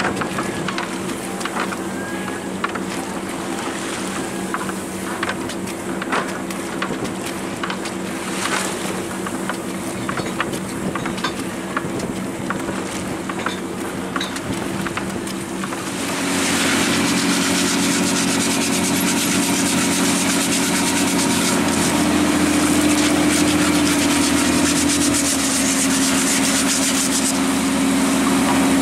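Lobster boat engine running steadily, then throttled up about halfway through, getting louder, with its pitch shifting a couple of times after that. Scattered short knocks sound in the first half.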